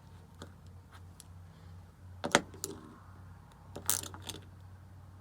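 Sharp metal clicks and clinks of an Allen key working the small set screws on a freezer door handle: one loud click a little over two seconds in, then a quick cluster near four seconds. A low steady hum runs underneath.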